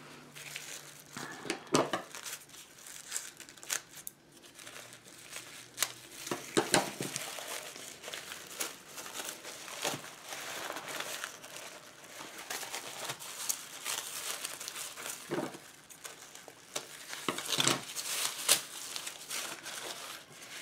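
Tissue paper being unfolded and handled, crinkling and rustling in irregular crackles that come louder in patches.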